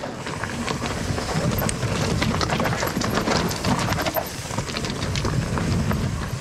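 Nordest Bardino steel hardtail mountain bike rolling fast down a dirt trail: tyres rumbling over ground and stones, with a dense irregular clatter of knocks and rattles from the unsuspended bike.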